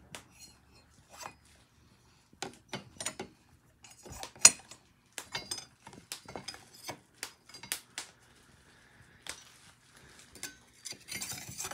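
Stainless steel hollow-handle knives clinking against each other and knocking into the slots of a knife block as they are set in place: scattered clicks and clinks, the sharpest about four and a half seconds in.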